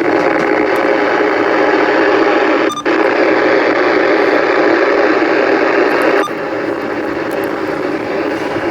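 CB radio receiver hissing with band noise (static) through its speaker, squelch open. It breaks off for an instant about three seconds in and drops a little in level a little past six seconds.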